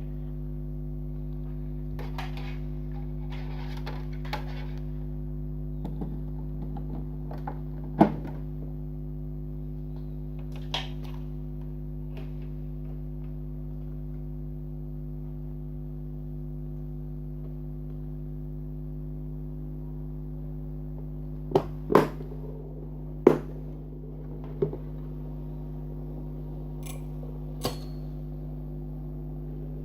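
Small PC cooling fans on a homemade Peltier dehumidifier running with a steady hum. A few sharp clicks and knocks come through it, one about a third of the way in and a cluster near the end.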